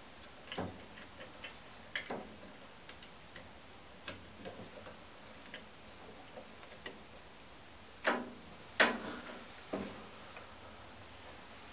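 Irregular small clicks and snaps of plastic wiring connectors being worked on a boiler's control circuit board, with three louder snaps near the end.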